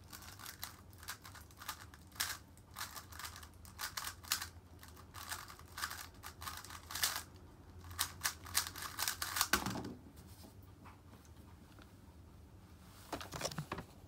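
3x3 speed cube being turned rapidly, a fast run of plastic clicks and clacks lasting nearly ten seconds, ending in a soft thud as the hands come down on the timer. A short burst of clicks follows near the end.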